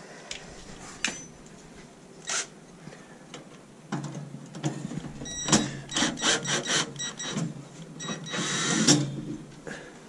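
Cordless drill-driver running in short bursts on screws in a boiler's sheet-metal casing, mixed with metallic clicks and rattles of the panel. The longest, loudest run comes near the end.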